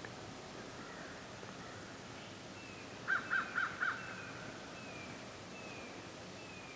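Birds calling: four quick, loud, harsh calls about three seconds in, over a string of short, evenly spaced falling notes.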